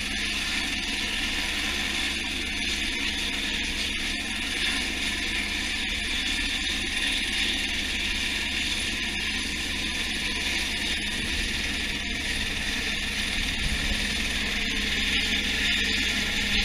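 Helicopter hovering close overhead with an underslung load on a long line: steady rotor and turbine noise with a high whine over a low rumble.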